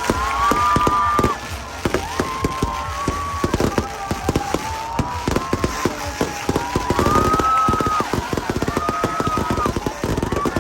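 Fireworks going off in a rapid, uneven string of bangs and crackles. Several high, drawn-out tones of about a second each sound over the top.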